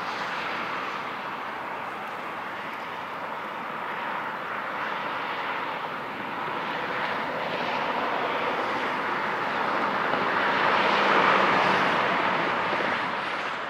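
A Boeing 777 freighter's twin GE90 jet engines heard from afar as it rolls along the runway: a steady broad rush that swells to its loudest about eleven seconds in, then eases off.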